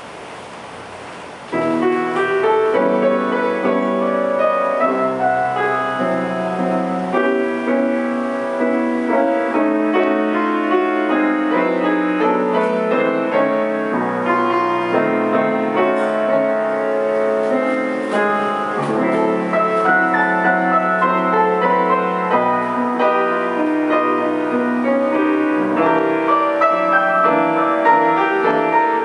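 Grand piano played solo, a piece in full chords and a moving melody that starts about a second and a half in after a brief hush.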